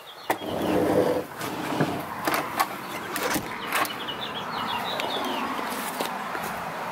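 Outdoor ambience with birds chirping, a door being handled by its knob and pulled shut with clicks and knocks, and footsteps on a paved path.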